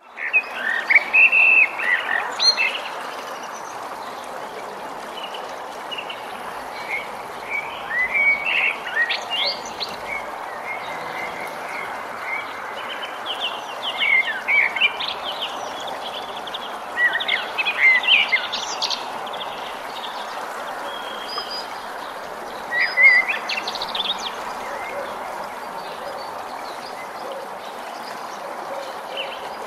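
Forest songbirds singing and chirping in clusters of short calls, loudest about a second in, around nine, eighteen and twenty-three seconds in, over a steady background hiss.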